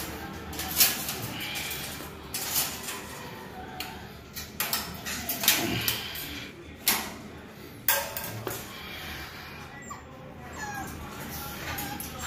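American bully puppies moving about in a stainless steel cage: repeated sharp knocks and rattles from the metal bars and wire floor, with a few faint puppy whines.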